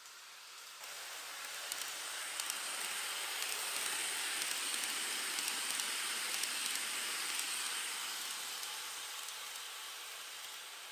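N-scale model train running past on its track, the wheels hissing along the rails with a faint high motor whine and small clicks, growing louder to a peak mid-way and then fading as it moves away.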